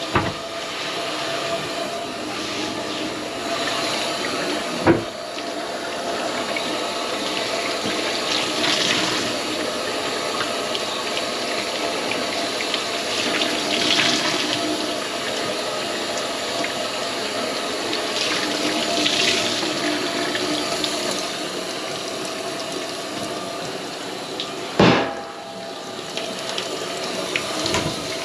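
Kitchen tap running water steadily into a stainless steel sink, with a sharp knock about five seconds in and another a few seconds before the end.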